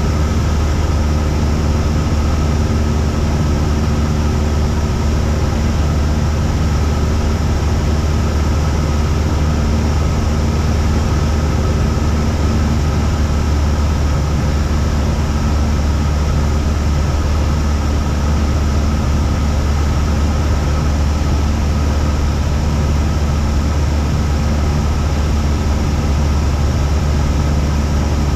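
Cessna 172's piston engine and propeller droning steadily in cruise, with an even pitch and no change in power.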